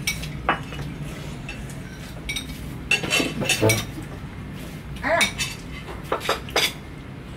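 Metal spoons and forks clinking and scraping against ceramic plates and bowls while people eat, in scattered separate clinks with a cluster a few seconds in.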